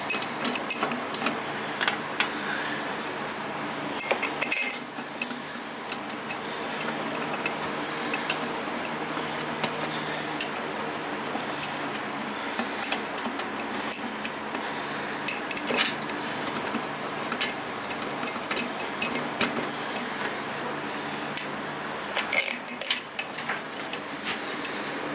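Metal parts clinking and tapping while the cylinder head bolts are threaded in by hand on a small Toro mower engine: scattered light clicks, with louder clusters of clinks about four seconds, sixteen seconds and twenty-two seconds in.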